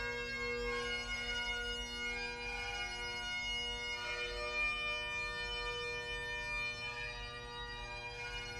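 Great Highland bagpipe playing a slow lament, its steady drones sounding under a changing chanter melody, echoing in a stone-vaulted chapel corridor. It grows slightly fainter as the piper walks away.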